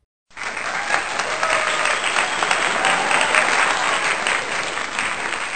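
Crowd applause sound effect, starting abruptly about a quarter of a second in.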